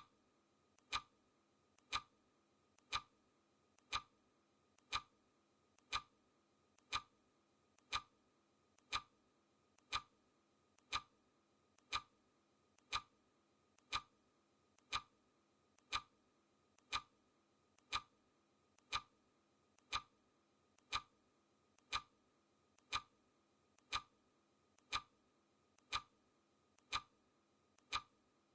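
Countdown timer's clock-style ticking, a sharp tick once a second with a fainter click halfway between, marking off each second.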